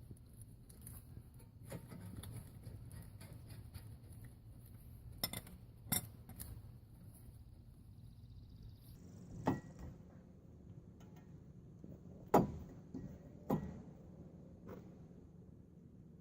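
Scattered metallic clinks and knocks of hand tools and steel brake parts being handled and set down, as in a brake job. There are a handful of sharper ringing knocks, the loudest about twelve seconds in.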